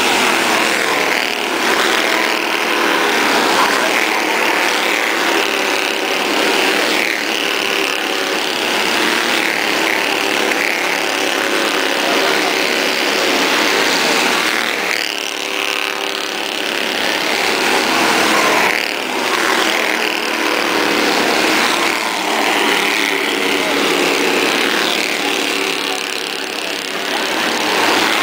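Several Bandolero race cars' small engines buzzing at racing speed as the pack laps the track, their pitch wavering as cars pass.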